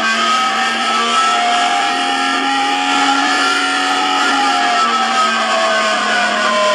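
Emergency alert broadcast sound: a loud, unbroken drone of several sustained electronic tones at once, some drifting slowly up and down in pitch.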